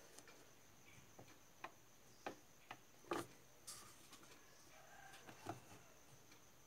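Faint, irregular clicks and light scrapes of a large screwdriver prying at a mixer grinder's black motor coupler, working it loose from the shaft.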